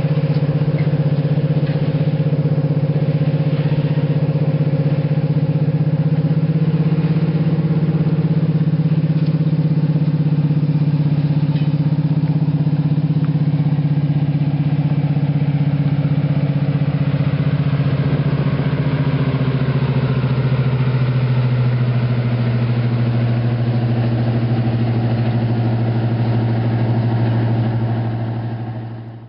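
British Rail Class 55 Deltic locomotive 55022's twin Napier Deltic two-stroke diesel engines drone steadily as it hauls a train of alumina tank wagons past. The engine note drops slightly just after it passes, and the sound cuts off suddenly at the end.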